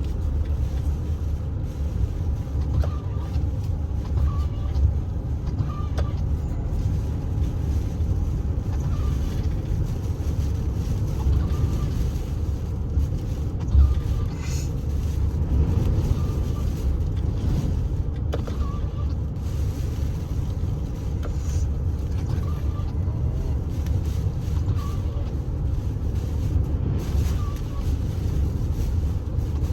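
Strong typhoon wind buffeting the microphone: a steady, heavy low rumble.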